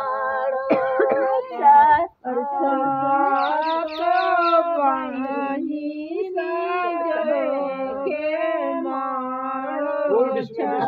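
Women singing a dehati folk wedding song for the planting of the bamboo pole, unaccompanied, in long drawn-out sung lines with a short pause about two seconds in.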